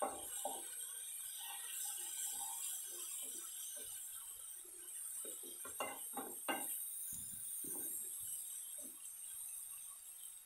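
Spatula scraping and knocking against a non-stick kadai as a thick onion-tomato masala is stirred, in short irregular strokes with a few louder knocks a little past the middle.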